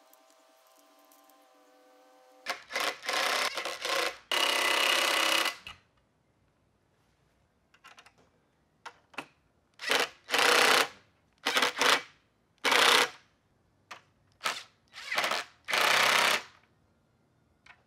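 Cordless impact driver run in about a dozen short bursts, the longest over a second, as it tightens stainless steel nuts and bolts that clamp wooden slats to a metal bench frame.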